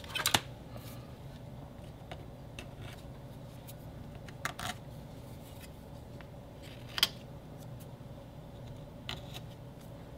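Sparse handling sounds on a worktable: a small metal tool scraping glue off a laser-cut model kit wall, then a few isolated clicks and taps as the parts are pressed and handled, over a faint steady hum.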